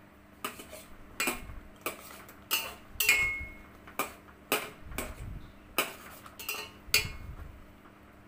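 Metal spoon clinking and scraping against the sides of a steel pot while stirring macaroni and Maggi noodles in water: about a dozen sharp clinks, roughly every two-thirds of a second.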